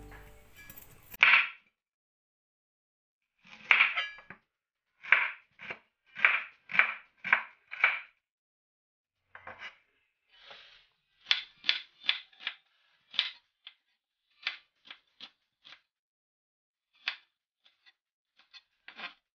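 A kitchen knife chopping a shallot on a plastic cutting board: a run of short knocks about two a second, then sparser, irregular strokes.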